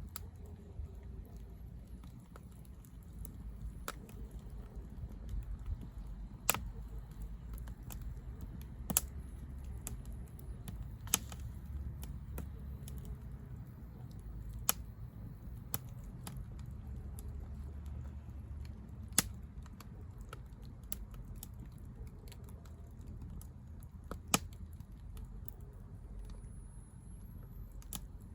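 Firewood burning in a fire pit, crackling with scattered small ticks and a few sharp pops, over a low steady rumble.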